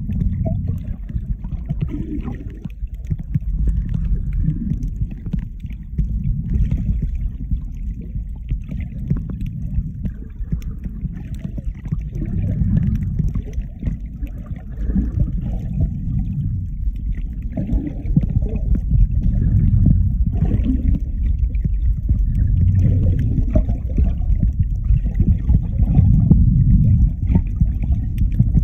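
Muffled underwater water noise picked up by a phone's microphone held below the surface: a low, uneven rumbling and sloshing with faint crackling over it.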